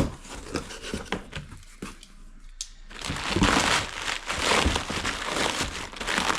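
Packaging wrap crinkling and rustling as a wrapped parcel is handled. It opens with a sharp click and a few light knocks, and about halfway through becomes dense, continuous crinkling.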